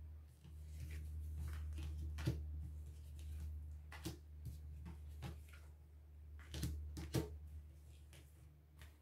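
Oracle cards being shuffled and handled: soft rustling with scattered light clicks, over a steady low hum.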